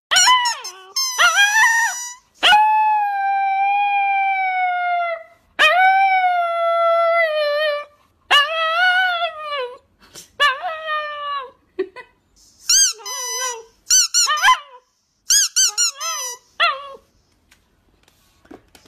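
Rubber squeaky football squeezed, drawn-out squeaks, with a husky puppy howling along. Several long held notes come in the first half, then shorter, wavering ones.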